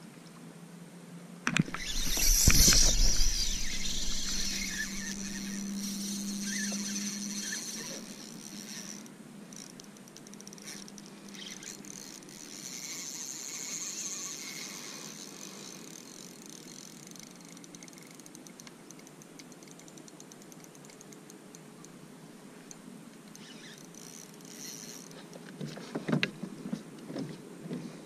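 Spinning reel's drag buzzing as a hooked fish strips line. It starts suddenly about a second and a half in with a thump of the rod being grabbed, runs for several seconds and buzzes again more weakly later, with clicks of rod and reel handling near the end.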